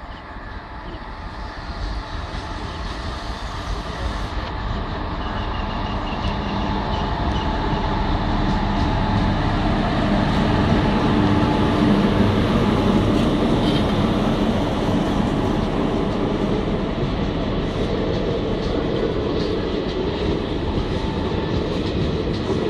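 Train running, a steady rumble that grows louder over the first ten seconds or so and then holds level.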